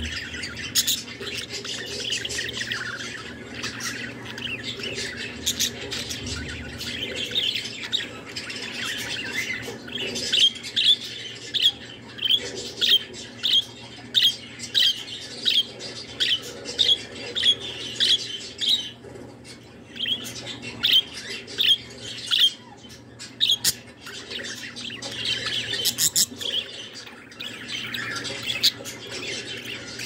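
Budgerigar warbling: a steady, chattering song. Through the middle it breaks into a long row of sharp, evenly spaced chirps, about three every two seconds, then goes back to the softer chatter.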